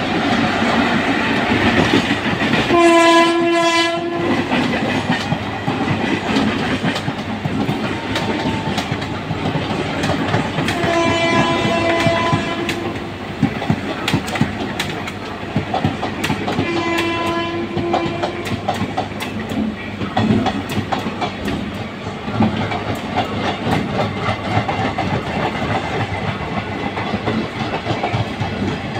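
Indian Railways passenger train hauled by a WAP-4 electric locomotive running past, its coach wheels clattering steadily over the rail joints. A train horn blows three times over it: briefly about three seconds in, longer around eleven seconds, and again around seventeen seconds.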